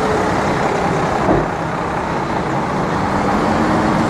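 City street traffic: a steady wash of passing vehicles and engine hum, with one brief low thump about a second in.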